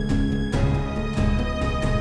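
Background music with a steady beat; the chord changes about half a second in.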